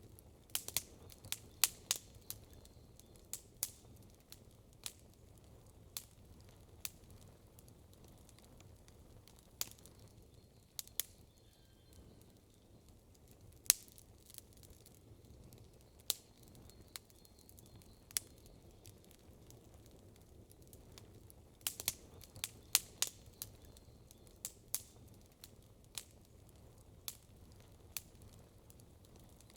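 Wood campfire crackling: irregular sharp pops and snaps, in two dense flurries, one about a second in and another about two-thirds of the way through, with scattered single pops between.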